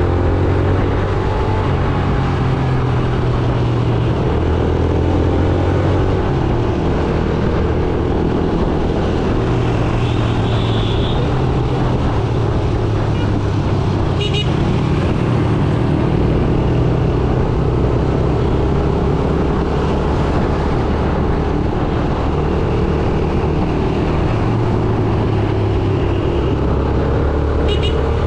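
Yamaha YBR 125G motorcycle's single-cylinder four-stroke engine running under way, its pitch slowly rising and falling with the throttle, over steady road and traffic noise. A short high beep sounds about ten seconds in.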